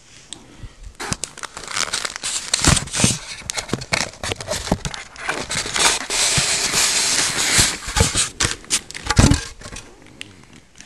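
Packaging being handled while an amplifier is unboxed: crinkling and rustling of plastic wrap or bag, with a couple of heavier knocks.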